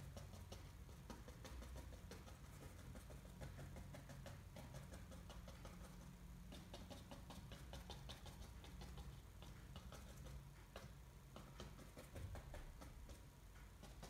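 Faint, quick, irregular tapping of a bristle paintbrush dabbing paint onto paper, over a low steady hum.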